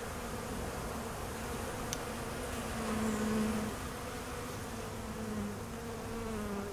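Honeybees buzzing: a steady hum that wavers slightly in pitch and swells a little about three seconds in.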